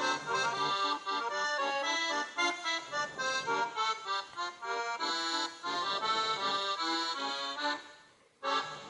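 Background music, a melody of quickly changing notes, that fades out about eight seconds in and starts again briefly just before the end.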